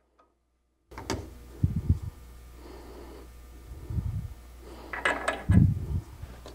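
Hands handling a brass sleeve and a tool-rest locking screw at a metal lathe banjo: sharp metal clicks about a second in and again near five seconds, and several dull thumps, over a steady low hum.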